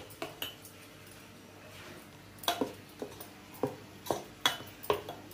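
A quiet stretch, then a run of light, uneven clinks and knocks of kitchen utensils on steel vessels.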